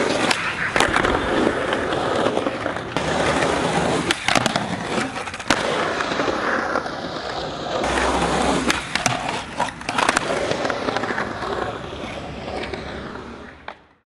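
Skateboard wheels rolling across a concrete skatepark surface, with sharp clacks of the board striking the ground several times as tricks are popped and landed. The rolling fades out near the end.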